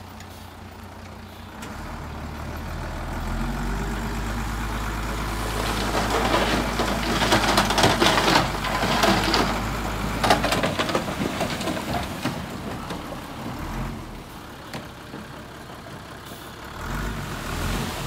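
Heavy diesel bulldozer working: its engine note builds and holds under load while loud scraping and clattering of soil and rock rises through the middle, then the engine drops back to a lower, quieter run and picks up again near the end.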